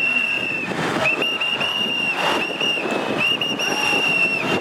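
Whistles blown in long, repeated blasts with short breaks, at times two at once, over steady crowd and street noise.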